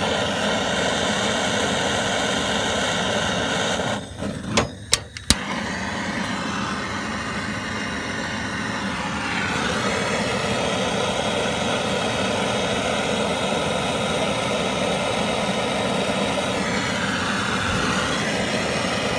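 BernzOMatic trigger-start propane torch burning with a steady hiss while heating a radiator fitting for soldering. About four seconds in the flame drops out and the trigger igniter clicks several times as it relights, then it burns steadily again.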